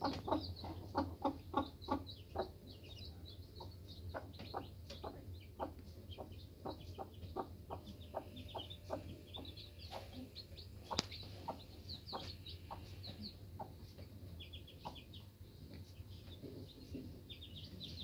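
Mother hen clucking in a steady rhythm of short low clucks, loudest in the first couple of seconds and softer after. Her chicks peep in short, high, falling notes over the top.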